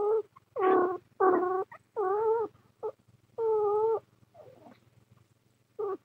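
A cat meowing over and over: about six short calls, each rising and falling in pitch, over a low steady purr.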